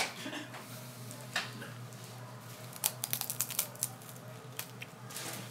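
Scattered small clicks and crinkles of snack packaging being handled, most of them in a quick cluster about three seconds in, over a low steady hum.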